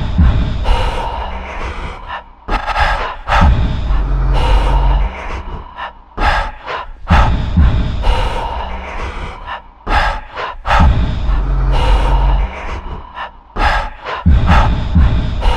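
A person's sharp, heavy gasping breaths, coming again and again, with a deep low rumble between them.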